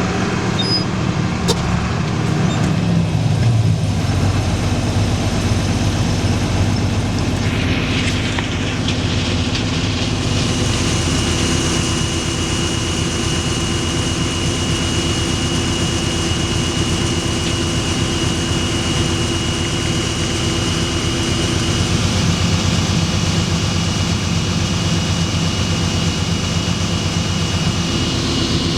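Farm tractor's diesel engine running steadily under load, with a steady high whine joining in about ten seconds in.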